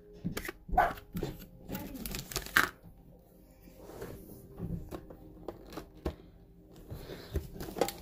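Hands handling trading cards and foil booster packs: several short clicks and rustles in the first few seconds, then quieter scattered handling.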